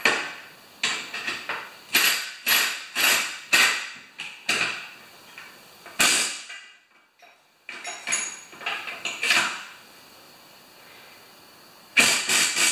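Sharp metallic clanks and knocks with a brief ring, in quick runs of about two or three a second broken by pauses, from steel strut-channel hardware being worked and fastened overhead.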